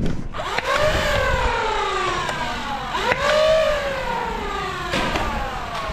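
A siren wailing: a quick rising tone that slides slowly back down, three times about three seconds apart, with a few sharp clicks in between.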